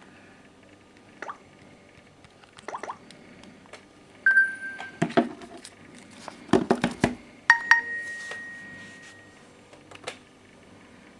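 Smartphones being handled, with scattered taps and knocks, a short electronic beep about four seconds in, and a brighter phone tone about halfway through that fades out over roughly two seconds.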